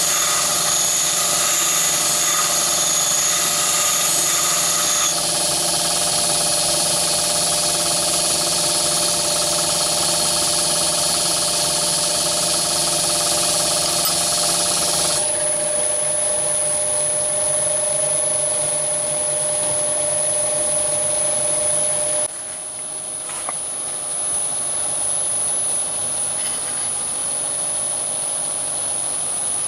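Myford ML7 lathe running steadily, spinning a diamond cup lapping wheel against a carbide-tipped lathe tool. The steady machine hum carries a high grinding hiss from the tool on the wheel, which thins out about halfway through while the lathe keeps running.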